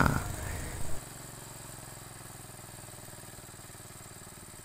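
Small single-cylinder engine of a portable irrigation water pump, fuelled by LPG from gas cylinders, running steadily while the primed pump delivers water out of its outlet hose.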